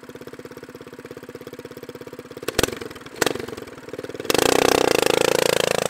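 Off-road go-kart's small engine idling with an even, rapid throb. Two sharp blips come about two and a half and three seconds in. Then the engine revs up loud, its pitch climbing slowly near the end.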